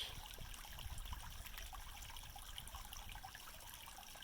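Shallow creek water trickling and babbling steadily over stones, at a low level.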